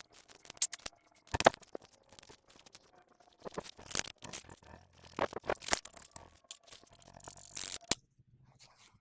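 Irregular clicks, knocks and clatter of small objects being handled, with a short hiss about seven seconds in.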